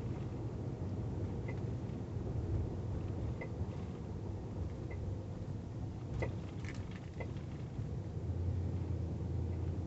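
Recurring short, sharp noises from the front passenger side of a 2012 Dodge Ram 4x4, heard from inside the cab over steady low road rumble at low speed, about half a dozen times a second or two apart. The noise has persisted even after the whole front suspension was replaced, so its cause is still unknown.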